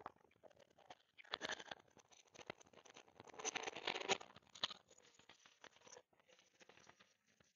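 Rustling, crackling noise picked up by a Bluetooth headset microphone and passed through call audio. It comes in irregular bursts, loudest about a third and half of the way in, and cuts out almost completely in between.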